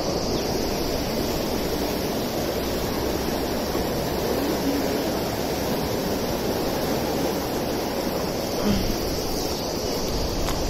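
Steady rushing of flowing river water in flood.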